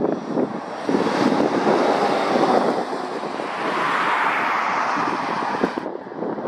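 DAF CF rigid box lorry driving past, a steady rush of tyre and engine noise, with wind buffeting the microphone.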